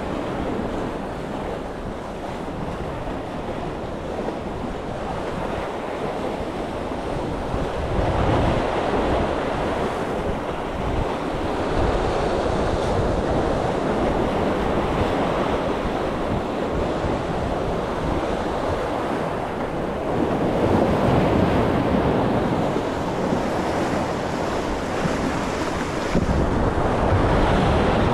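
Sea surf washing against a breakwater of concrete armour blocks, growing louder in swells every few seconds as waves break, with wind buffeting the microphone.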